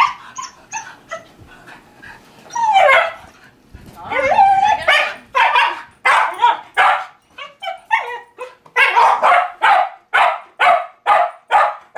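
A dog barking over and over, about two barks a second in the second half, after a couple of longer, drawn-out yelping cries a few seconds in.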